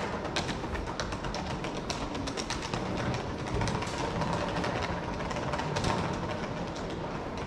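Ambient sound of a walking tour: many quick taps and clicks, typical of footsteps on hard paving, over a steady background din.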